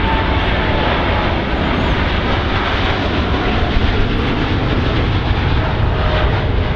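Heavy jet airliner taking off, its engines at takeoff thrust giving a loud, steady rumble, with a faint whine that drops slightly in pitch.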